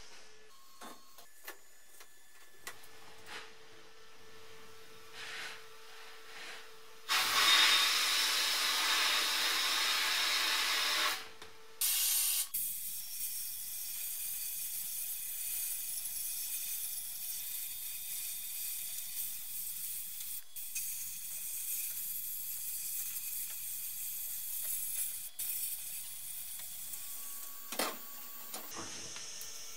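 Shot-blasting cabinet in use. The blast gun hisses loudly for about four seconds, stops briefly, then runs as a steadier hiss for about fifteen seconds before cutting off near the end. A few light clicks and knocks come before the blasting starts.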